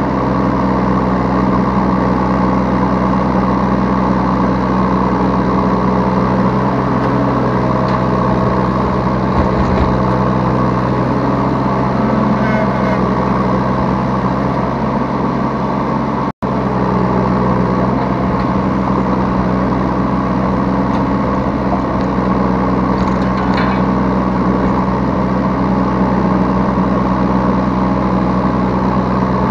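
Yanmar B3 Sigma mini excavator's diesel engine running steadily while it digs and loads, heard from the operator's seat. The sound cuts out for a split second just past halfway, then carries on unchanged.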